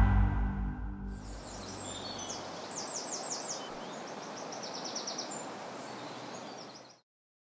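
Music fading out in the first second, then outdoor ambience: a steady rush of wind with birds chirping in short, quick high trills, several runs of them. The sound cuts off abruptly near the end.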